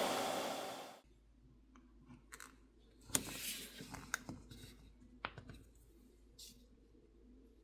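A hairdryer blowing, switched off about a second in. Then faint scattered clicks, scrapes and crackles of a pry tool working under the OnePlus 15R's glass back plate as the heat-softened adhesive is worked loose.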